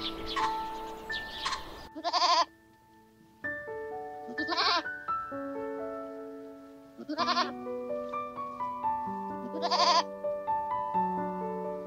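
Goat bleating: five short, wavering bleats, the first about two seconds in, then roughly every two and a half seconds, over background music with held notes.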